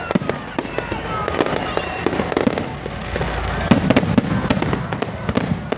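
A dense, irregular run of sharp cracks and pops over a busy festival din, with music underneath.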